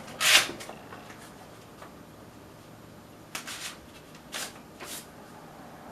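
Short rustles of paper as a greeting card and its envelope are handled: one loud rustle just after the start, then a few quieter ones about three and a half to five seconds in.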